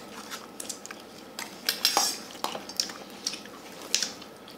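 A metal spoon clinking and scraping against a stainless steel bowl of rice while food is scooped up, in short irregular knocks, the loudest about two seconds in and again about four seconds in.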